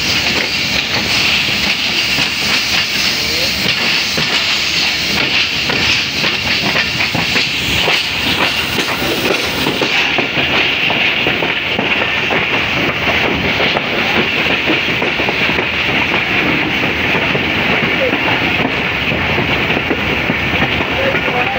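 Passenger train coach running along the track, heard from its open door: a steady rumble and rattle of the wheels, irregular clicks over rail joints and points, and a constant hiss.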